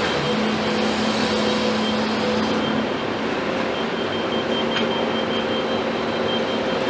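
Komatsu PC210 excavator's diesel engine running steadily with a held mechanical tone over it; the tone and some of the high hiss drop away about three seconds in.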